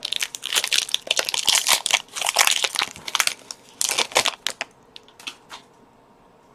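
Foil wrapper of a Pokémon TCG booster pack crinkling and crumpling as it is handled and opened. The crackling is dense for about four seconds, then thins to a few crackles and stops about five seconds in.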